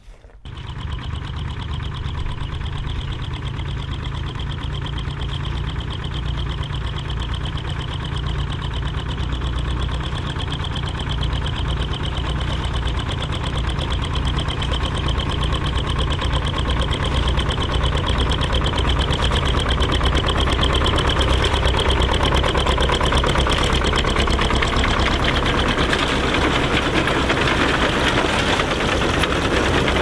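Bolinder-Munktell BM-Victor tractor engine running steadily under load while pulling a reaper, mixed with the reaper's fast, even clatter of cutter bar and rake mechanism. It starts abruptly about half a second in and grows somewhat louder in the second half.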